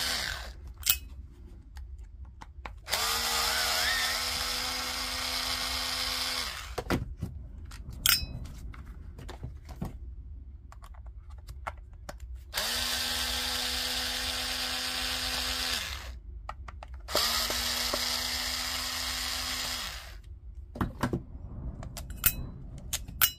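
Electric screwdriver with a TX10 Torx bit running three times, a few seconds each at a steady pitch, backing the case screws out of a cordless-tool battery pack. Short clicks and taps of handling fall between the runs.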